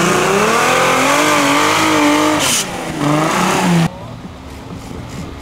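Trial buggy's engine revving hard, its pitch rising and falling as it claws up a steep muddy slope. A little before four seconds in it cuts off suddenly to a fainter, steadier engine hum.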